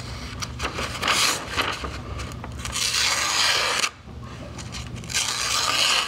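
The small blade of a Victorinox Swiss Army knife slicing through a sheet of newspaper: a dry, papery cutting scrape, as a paper test of a freshly sharpened edge. The cutting comes in two stretches, the first stopping about four seconds in, the second starting again a second later.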